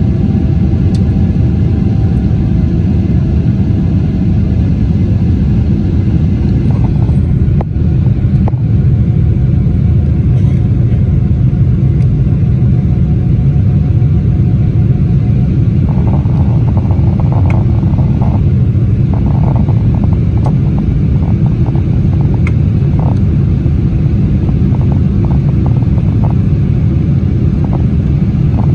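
Steady, loud rumble of a Boeing 777-300ER's GE90 engines and rushing air, heard inside the cabin under takeoff power. A faint whine fades out a few seconds in, and small cabin rattles tick now and then in the second half.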